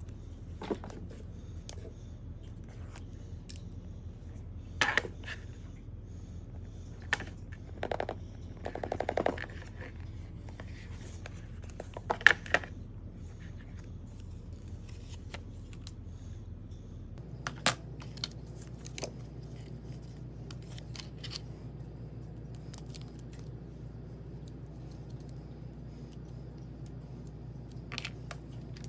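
An iPhone 13 retail box being handled and unpacked by hand: scattered clicks, scrapes and rustles of cardboard and packaging, with a short rapid rasp about nine seconds in, over a steady low hum.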